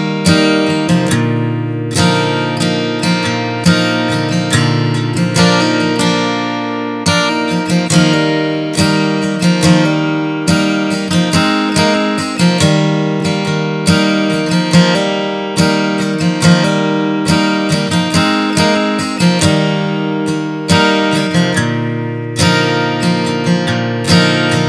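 Background music: acoustic guitar playing plucked and strummed chords at an even pace.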